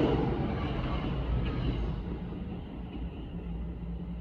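NJ Transit commuter train rolling past, its wheels rumbling on the rails under a low hum. The sound is loudest at the start and fades steadily as the cars move away.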